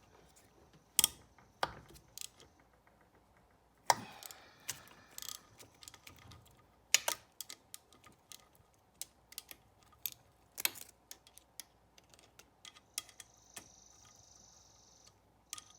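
Hand tools and metal parts clicking and clanking as a motorcycle engine is taken apart: scattered sharp clicks with a few louder metallic clanks.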